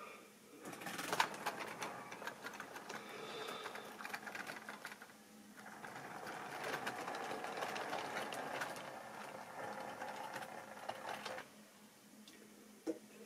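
Model railway rolling stock running along the track: a steady whirring rattle with many small clicks of wheels on the rails. It breaks off briefly about five seconds in, then runs on and dies away shortly before the end.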